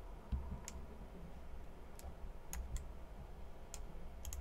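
Sparse, separate clicks from a computer mouse and keyboard, about seven spread over four seconds, over a low steady hum.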